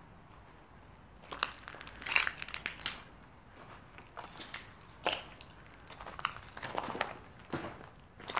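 Footsteps crunching over rubble and grit on a littered floor, coming in irregular clusters of steps.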